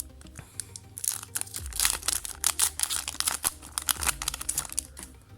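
Foil Yu-Gi-Oh booster pack crinkling and tearing as it is ripped open, a dense run of crackles from about a second in, over quiet background music.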